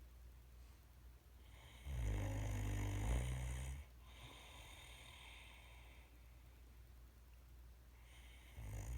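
Great Dane snoring in its sleep: one long, loud, low snore about two seconds in, quieter breathing after it, and the next snore starting near the end.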